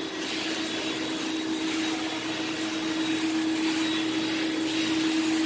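Portable carpet extractor running: a steady motor hum under the hiss of the cleaning wand spraying at about 300 PSI and sucking water back out of the carpet. The hiss grows louder in two stretches, near the start and near the end.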